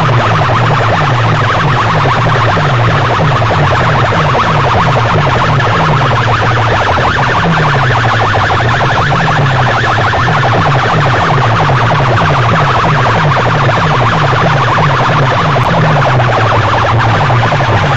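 Clusters of horn loudspeakers blasting heavily distorted music at full volume, with a low bass line of short rising pitch steps repeating rapidly.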